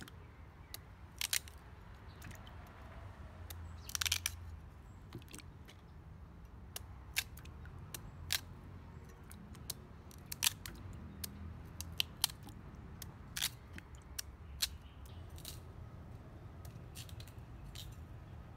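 Knife cutting raw sweet potato held in the hand: a series of crisp, irregular snaps, roughly one a second, as chunks are chopped off and drop into a bowl of water.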